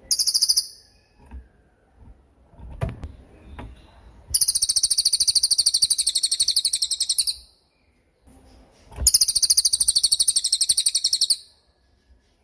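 Cililin bird singing high, very fast trills: a short one at the start, then two long trills of about three seconds each. A few low knocks fall in the gaps between them.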